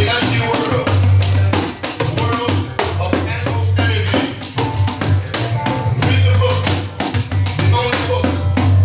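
An old 12-inch nylon-head pandeiro played in a fast, steady rhythm of jingling strokes over a recorded song with a prominent bass line.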